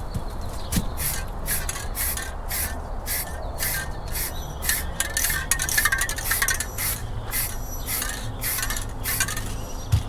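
Rhythmic rubbing or scraping strokes on a surface, about two to three a second, over a low steady rumble.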